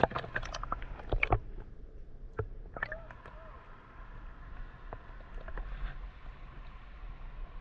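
Water sloshing and splashing close to the microphone, with a cluster of sharp clicks and knocks in the first second and a half.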